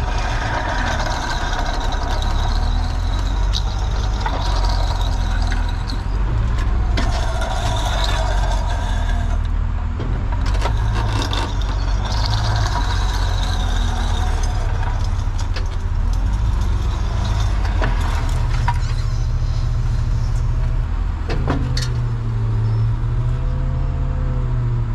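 Wheel-lift tow truck's engine running with a steady low rumble as the truck backs up to a parked car. Near the end the rumble deepens and wavering tones rise and fall over it.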